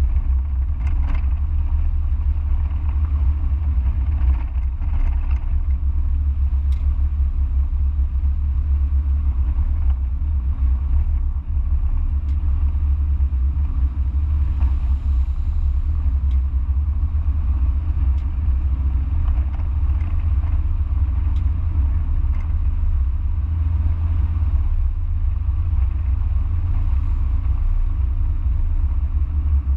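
Mazda MX-5 heard onboard while driving: a steady low rumble of engine, tyres and wind, with no sharp revving.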